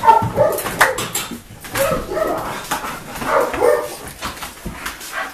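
A dog whimpering and barking in short repeated calls that bend up and down in pitch.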